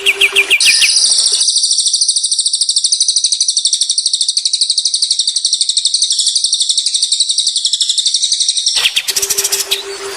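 A songbird giving one long, very fast, high trill that lasts about eight seconds. Just before it comes a quick run of repeated short notes.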